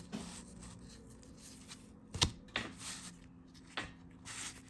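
A few short clicks and knocks of something being handled, the sharpest about two seconds in, over a faint steady hum.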